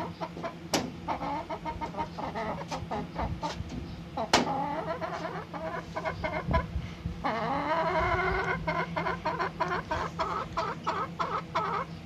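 Aseel chickens clucking, with a run of drawn-out calls in the second half. Many short, sharp taps come through, as a hen pecks feed from a ceramic plate. A steady low hum sits underneath.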